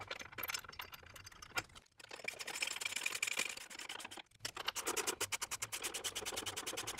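Hand ratchet on a long socket extension clicking rapidly in runs, with short pauses about two and four seconds in, as a skid-plate mounting post is threaded in toward bottoming out.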